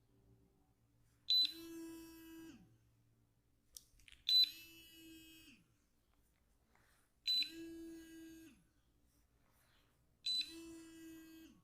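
A ringing electronic tone that sounds four times, evenly about every three seconds, each time starting with a sharp attack and lasting just over a second.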